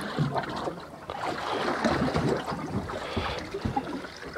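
Sea water lapping and sloshing against the hull of a drifting boat, an irregular splashing that swells about halfway through.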